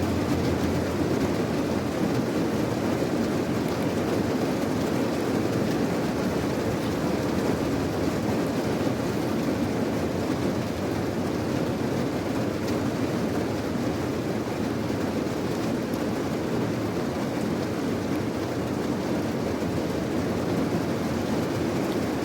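Steady rain, an even deep rush of noise that holds level throughout.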